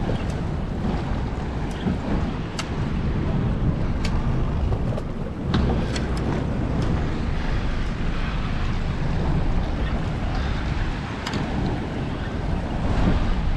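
Wind buffeting the microphone over choppy water slapping around a small boat, with a few sharp ticks scattered through.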